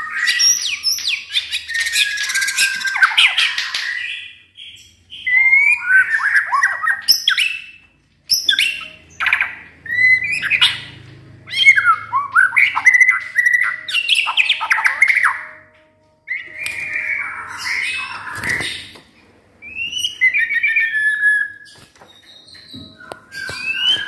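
White-rumped shama singing hard, a rich, varied song of whistles, slurred notes and rapid chirps delivered in bursts with short pauses between them.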